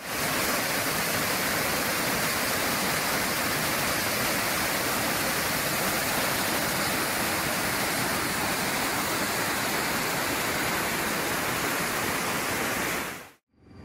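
Waterfall cascading over rocks: a steady rush of falling water that cuts off abruptly near the end.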